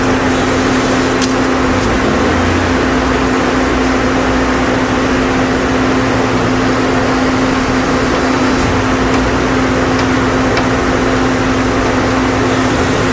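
Steady machine hum: a constant low tone over a loud even hiss, with a few faint clicks.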